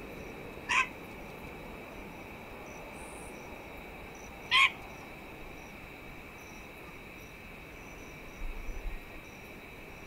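Pied currawong giving two short calls about four seconds apart, over a steady insect drone.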